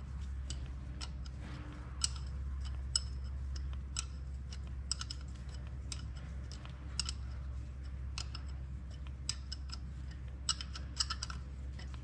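An open-ended spanner clicking on double-locked nuts as an exhaust manifold stud is wound into a cylinder head: irregular small, sharp metal clicks, now and then in quick clusters, over a low steady hum.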